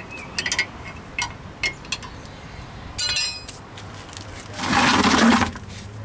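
Sharp metallic clicks and ticks from hands working at the wheel hub, then a ringing clink of metal parts about three seconds in. Near the end comes a brief, louder scraping rush as a car wheel and tire is grabbed and shifted on the pavement.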